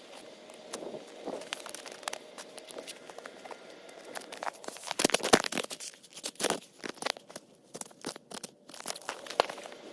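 Crinkling, crackling rustle of something being handled, made of many sharp crackles that grow louder and denser about halfway through.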